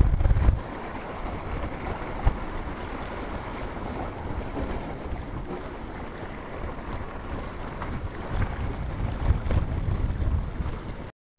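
Wind buffeting the microphone over the steady wash of small waves breaking against rocks. The wind rumble is heaviest at the start and again near the end, and the sound cuts off abruptly just before the end.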